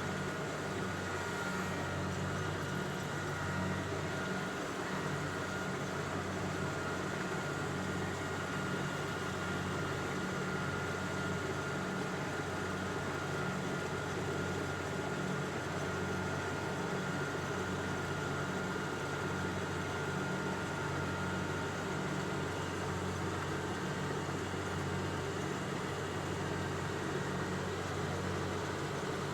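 An engine running steadily at an even speed, with a faint steady whine above it.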